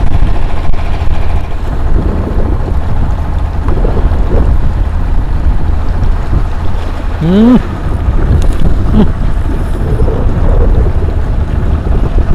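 Strong wind buffeting the camera microphone, a steady low rumble over open water. A short rising call cuts through a little past halfway.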